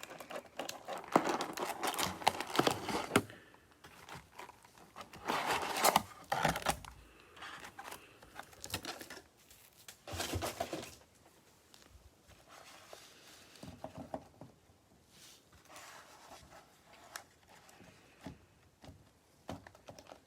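Plastic wrapping crinkling and tearing in irregular bursts as a box of cellophane-wrapped trading-card packs is opened and the packs are pulled out. The loudest bursts come in the first few seconds, around six seconds and around ten seconds, with softer rustling after that.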